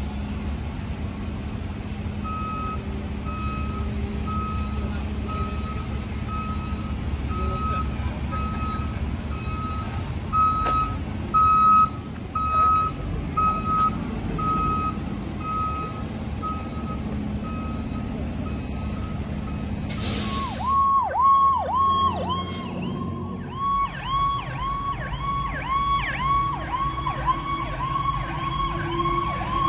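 A fire truck's backup alarm beeping steadily, about once every 0.7 seconds, over its diesel engine's low idle, with a couple of louder thumps about halfway. Then, about two-thirds of the way in, a fire engine's electronic siren starts, a held tone that dips quickly in pitch about twice a second.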